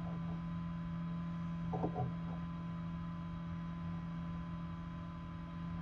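Steady low hum of a Nurture Right 360 egg incubator's fan running, with a couple of faint short sounds about two seconds in.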